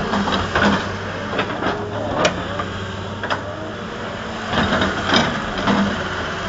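A construction machine's engine running steadily, with irregular metallic clanks and knocks from the working machine.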